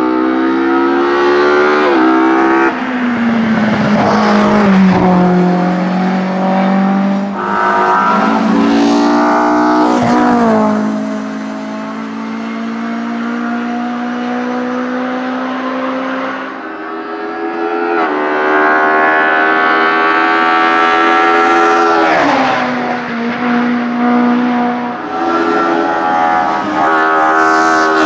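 BMW 2002 hillclimb race car's 2-litre eight-valve four-cylinder engine at full throttle, its revs climbing and dropping sharply at each gear change several times over. About halfway it runs quieter and steadier for a few seconds before revving hard again.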